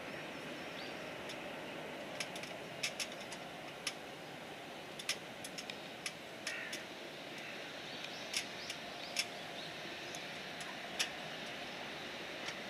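Steady rushing hum of an Airbus A330-900neo's Rolls-Royce Trent 7000 jet engines at low taxi thrust as the airliner lines up on the runway, with sharp clicks at irregular intervals over it.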